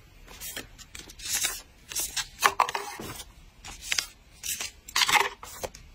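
Skincare sample sachets crinkling and rustling in irregular bursts as they are handled and sorted among other sachets in a drawer.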